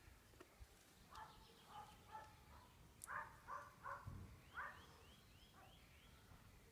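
Faint bird calls: runs of short, harsh notes repeating a few times a second, from about a second in until about five seconds in, with fainter high chirps in the middle.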